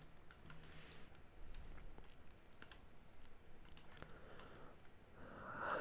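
Faint, scattered clicks of a computer mouse, its middle button pressed several times to orbit the view.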